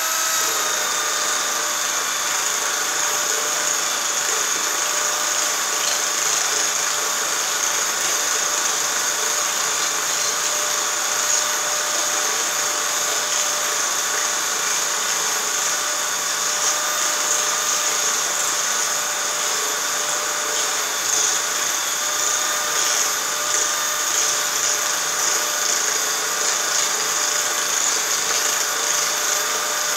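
Electric motor of a homemade metal-forming machine running steadily with a high whine, spinning a wooden forming wheel while a copper leaf is pressed against it to shape it into a shallow dish. The pitch dips slightly near the start.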